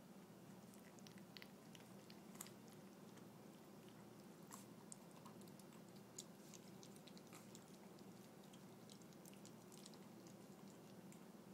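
Four-week-old puppies eating at a bowl: faint, irregular little clicks and smacks of chewing and lapping, over a faint steady low hum.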